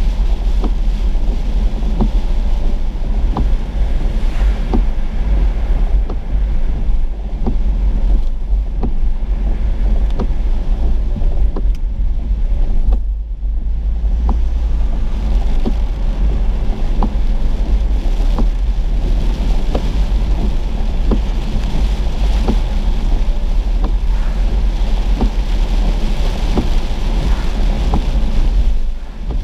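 Car driving through heavy rain, heard from inside the cabin: a steady low rumble of road and wind noise, with raindrops ticking irregularly on the windshield.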